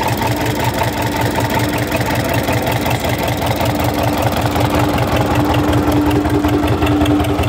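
Tractor diesel engine idling steadily with an even, fast low knock. The seller says the engine burns no oil and blows nothing from the crankcase breather.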